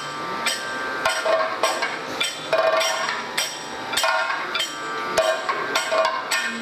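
Kathakali percussion accompaniment: a chenda drum and metal hand cymbals struck in a steady rhythm of about three strokes a second, with ringing metallic tones carrying between the strokes.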